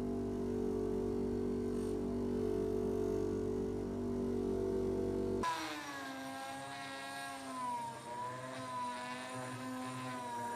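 Electric power tool motors running: a steady low hum, then an abrupt change about halfway to a higher whine whose pitch sags and wavers as the tool is loaded.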